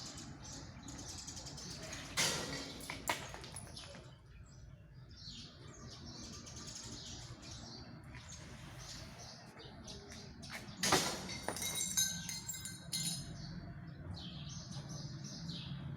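Birds chirping, with a few short, sharp knocks; the loudest comes about eleven seconds in.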